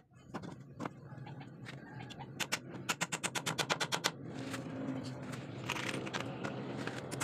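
Hammer driving nails into a wooden bench slat: a few single taps, then fast runs of light blows, about a dozen in a second around the three-second mark. Near the end, nails rattle briefly as they are picked from a plastic box.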